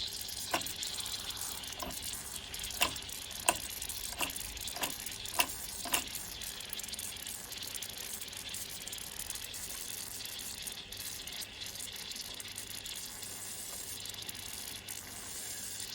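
Mamod SE1 toy steam engine hissing steadily with leaking steam, while about eight sharp ticks come closer and closer together over the first six seconds and then stop, as the engine tries to turn over. The owner suspects it is not getting enough steam pressure up.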